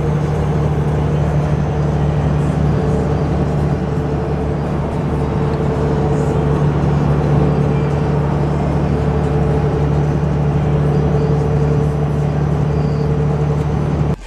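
Steady drone of a vehicle driving at a constant speed: a low, even engine hum with road noise, no change in pitch.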